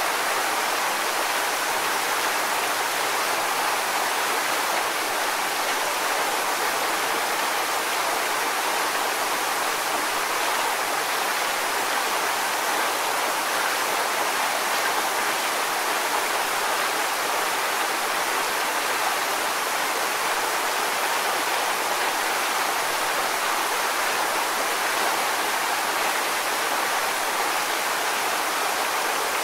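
A waterfall's steady, unbroken rush of falling water, with little deep rumble.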